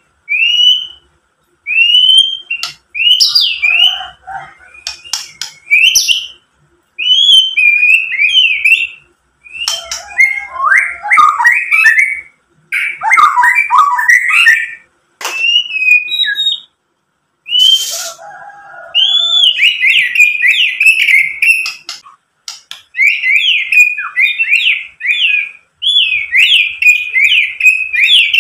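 White-rumped shama singing: loud whistled notes that rise and fall, mixed with fast chattering runs and trills, in bursts separated by short pauses, with one brief harsh rasp about two-thirds of the way through.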